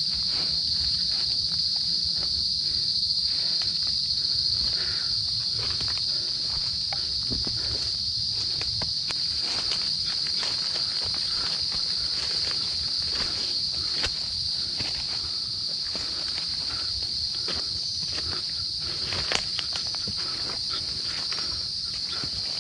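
Dense insect chorus, a steady high-pitched drone throughout, with irregular rustling and footsteps of a hiker pushing through thick, overgrown undergrowth.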